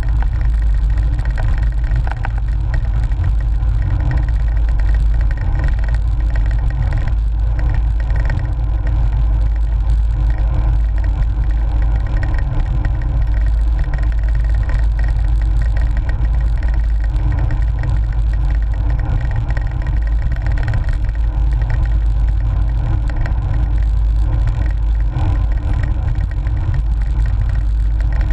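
Steady low rumble of wind buffeting a bike-mounted GoPro's microphone, with road vibration from a moving cyclocross bike.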